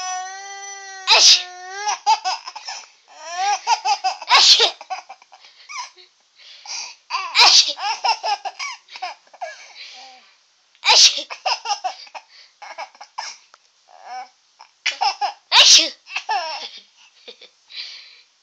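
A baby laughing in repeated peals, each set off by an adult's fake sneeze. There are about five sharp "choo" bursts, the first after a held "ahh" wind-up.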